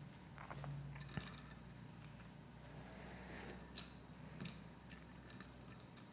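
Lego Technic plastic pieces being handled and pressed together: faint rustling with a few small, sharp plastic clicks, the sharpest a little under four seconds in and another about half a second later.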